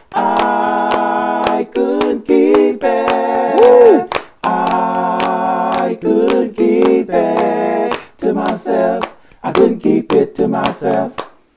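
A cappella gospel vocal harmony, one man's voice multi-tracked into several parts, holding chords over steady hand claps on the beat. Near the end the chords break into short, separate stabs.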